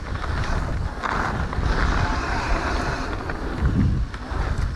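Mountain bike rolling down a dirt singletrack: tyres hissing over the trail surface, with wind buffeting the rider-mounted camera microphone as a steady low rumble.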